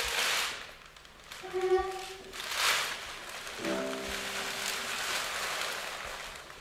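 A large sheet of paper rustling and crinkling as it is gathered up by hand across the floor. Short cello notes sound between the rustles, a brief one early on and a lower note held for over a second near the middle.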